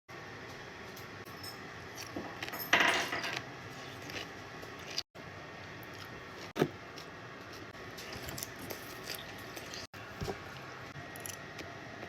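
Salad being eaten with a metal fork: small clinks and scrapes of the fork against the bowl, with a louder crunchy rustle about three seconds in and a sharp click about halfway through.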